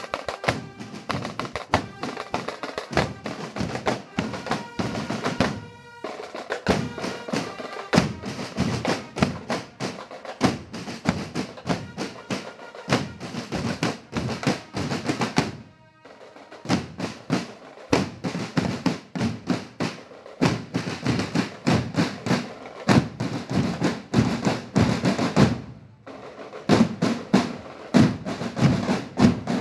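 Marching band drum line playing: rapid snare drum strikes and rolls over bass drum beats, with ringing metal notes from bell lyres at times. The playing breaks off briefly about six and sixteen seconds in.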